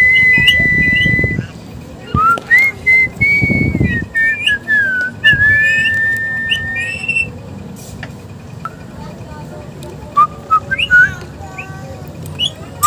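Ring-necked parakeet whistling: a long steady whistle, then a string of gliding and falling whistles, and short chirpy notes near the end.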